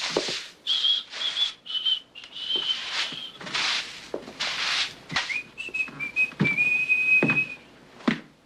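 A man whistling a slow tune, one note at a time, with a long held note near the end, over repeated swishes of a broom sweeping a floor.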